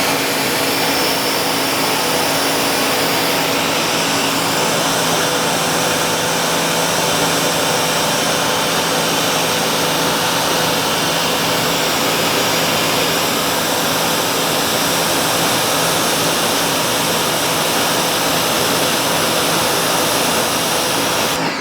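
Ryobi electric pressure washer running and spraying through a 12.0 nozzle under a pressure test: a steady motor-and-pump hum under the loud hiss of the water jet, cutting off suddenly near the end.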